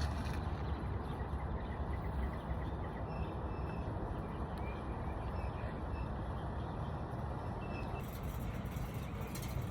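Steady outdoor background noise with a low hum and a few faint short chirps; no tool is heard working.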